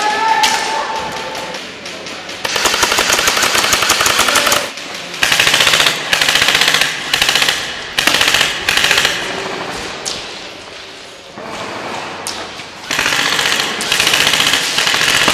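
Airsoft guns firing on full auto: one long burst of about two seconds, then several short bursts, a lull, and another long burst near the end.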